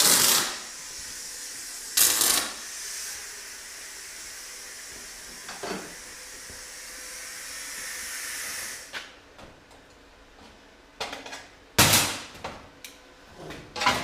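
Loud bursts of hissing, one right at the start and one about two seconds in, then a steady high hiss that stops about nine seconds in. Scattered clicks follow, and another sharp hissing burst comes near the end.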